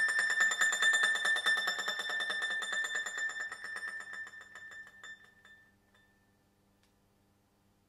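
1924 Vinaccia bowl-back mandolin played with a rapid plectrum tremolo on a held note, the final note of the piece. It swells early on, then dies away from about four seconds in, leaving only a faint ringing tail.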